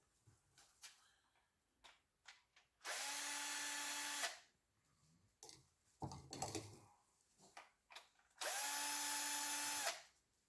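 Electric drill run twice in short bursts of about a second and a half each, winding down after each. Small clicks and knocks of handling come between them.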